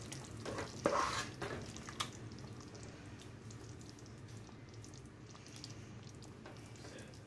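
A black spoon stirring and scooping thick broccoli cheese soup in a nonstick pot, with a few soft scrapes and knocks against the pan in the first two seconds. After that it is quieter, with a faint steady low hum underneath.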